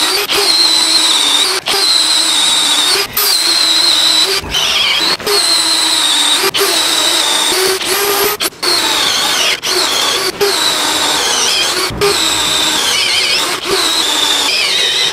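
Bosch GSB 18V-EC brushless cordless drill boring into a wooden beam with a wood auger bit, on the last bar of its 18 V battery. The motor whines steadily with short stops every second or two, and its pitch sags several times as the auger bites into the wood.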